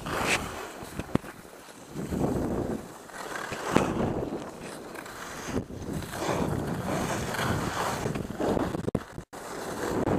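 Skis scraping and carving over snow through a series of turns, each turn a swelling rush of noise, with wind rushing over the camera's microphone. A few sharp clicks, and a brief gap near the end.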